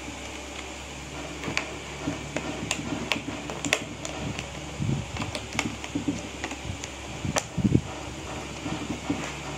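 Scattered clicks and taps of objects being handled, with a few heavier knocks, over a steady hum.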